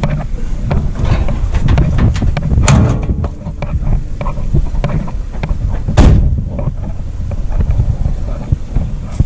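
Low rumble of handling noise on a handheld microphone, with scattered clicks and knocks; the sharpest knock comes about six seconds in.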